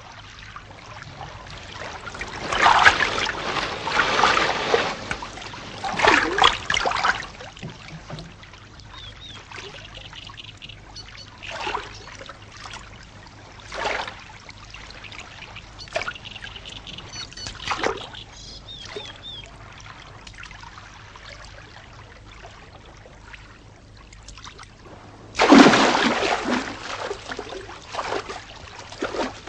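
Water splashing as a kayak is launched and paddled: short paddle splashes about every two seconds, then a big splash near the end as the kayak capsizes and the paddler goes into the water. A faint steady low hum runs underneath.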